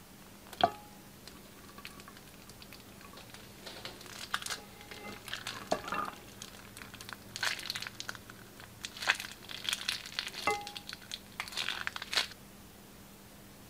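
Scissors snip the tip off a plastic piping bag with one sharp click about half a second in. From a few seconds in until near the end, the thin plastic bag crinkles in irregular crackles as it is squeezed and its clear contents are pressed out.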